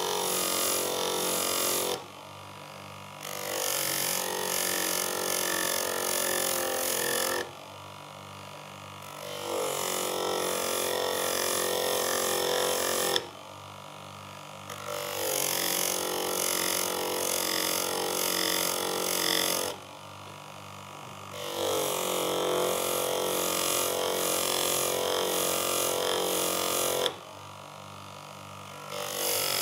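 A chisel held against a spinning leather honing wheel charged with polishing compound, deburring and polishing the edge. The result is a steady friction noise lasting four to five seconds at a time, broken by short pauses several times. In the pauses only the machine's motor hum is left, as the chisel is lifted and turned to its other side.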